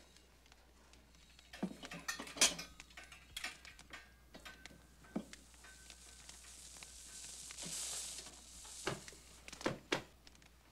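Wood fire crackling in a fireplace: scattered pops and snaps, with a soft hiss swelling for a second or two past the middle.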